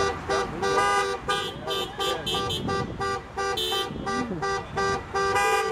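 Car horns honking again and again from passing traffic, in many short beeps and a few longer blasts, some overlapping.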